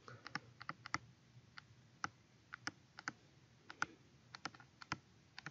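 Faint, irregular clicks of a stylus tapping and stroking on a touchscreen as letters are handwritten, a few taps a second with short gaps.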